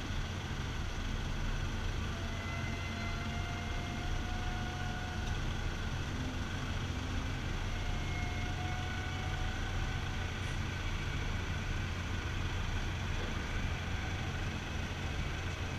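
Steady low engine drone of a river vehicle ferry running, with faint thin tones coming and going above it.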